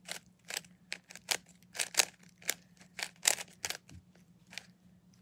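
3x3 Rubik's cube being twisted by hand: a quick, irregular run of sharp plastic clicks as its layers are turned, stopping near the end.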